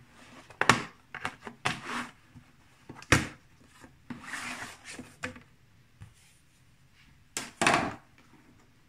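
Plastic bottom cover of a Chromebook being pried off with a steel pry tool: a series of sharp clicks and snaps as its clips let go, with a scraping rub in the middle and a loud double snap near the end.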